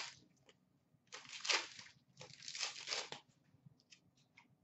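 Foil hockey card pack wrapper being torn open and crinkled in the hands: two short rustling bursts, then a few light ticks of cards being handled.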